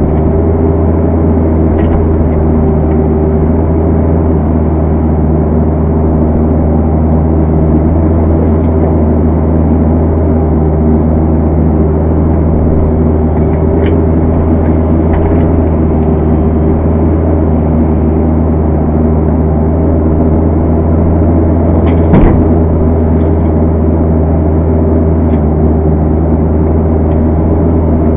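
Kubota KX121-3 mini excavator's diesel engine running steadily and loudly while the boom and bucket dig, with a single knock about 22 seconds in.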